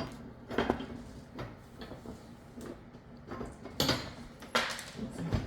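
Irregular metal clicks, clinks and knocks from lawn mower handle parts being handled: bolts, washers and wing nuts fitted through the metal handle sections. The sharpest knocks come about four seconds in.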